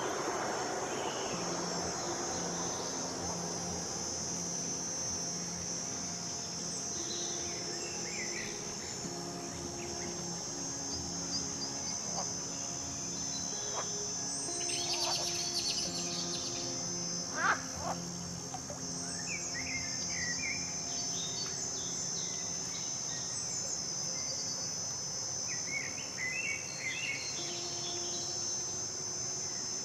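A steady, high-pitched chorus of insects runs on without break, with scattered short bird chirps over it, including a louder one about 17 seconds in and a cluster near the end. A faint low steady hum lies underneath.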